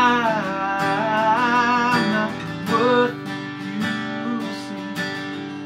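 A man sings drawn-out, wavering notes over a strummed steel-string acoustic guitar. The singing stops about three seconds in and the guitar strumming carries on alone.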